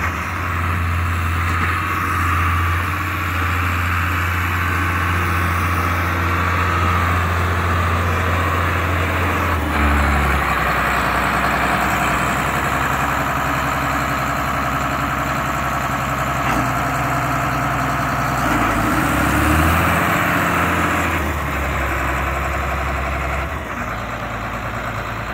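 1997 New Holland 8670 MFWD tractor's six-cylinder diesel engine running steadily as the tractor drives across grass. The engine note shifts about ten seconds in and again around twenty seconds.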